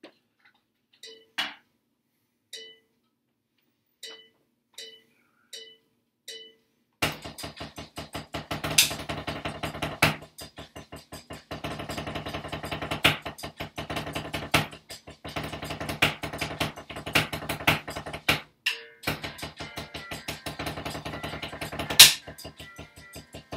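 Drumsticks playing a rudimental snare exercise on a practice pad along with an electronic play-along track. It opens with a short count-in of separate click beeps, then about seven seconds in the backing music and a dense run of stick strokes start together, with a few much louder accented strokes and a brief break a few seconds before the end.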